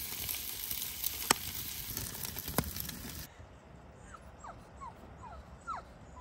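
Pugs whining for food: a string of short, high whimpers in the last two seconds. Before them comes a steady hiss with two sharp clicks, which cuts off suddenly about three seconds in.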